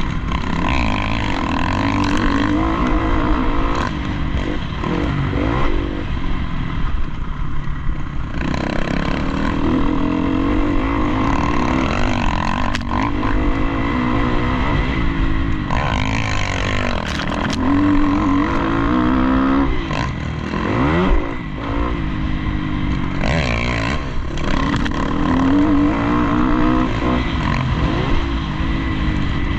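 Dirt bike engine revving up and down again and again as the rider accelerates, shifts and backs off around a motocross track, heard from a camera on the rider's helmet.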